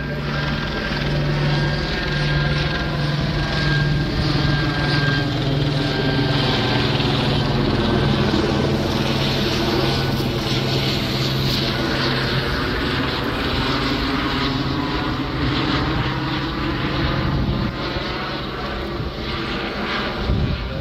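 Helicopter passing overhead: a steady drone of rotor and engine whose sound slowly shifts as it moves across the sky.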